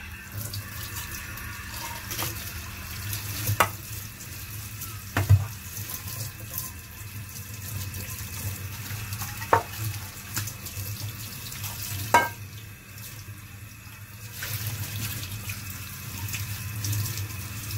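Kitchen tap running onto a frying pan in a stainless steel sink as the pan is rinsed by hand. Four sharp knocks stand out from the water, spread over the first twelve seconds or so.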